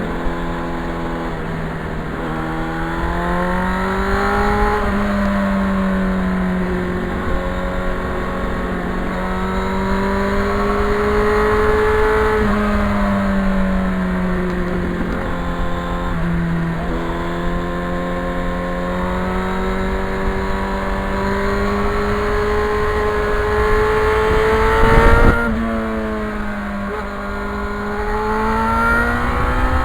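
Yamaha FZR motorcycle engine pulling under way, its note climbing slowly through each gear and dropping sharply at several shifts, over a low rush of wind noise. About five seconds before the end there is a brief loud burst.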